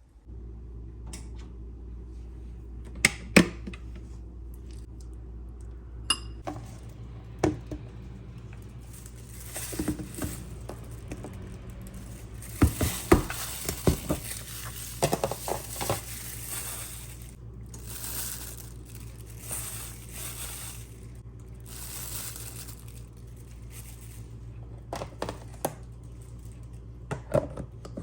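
Household objects being handled: scattered clinks and knocks like dishes or glass set down, with rustling and crinkling, over a steady low hum.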